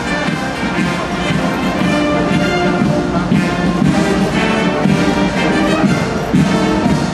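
Brass band music playing.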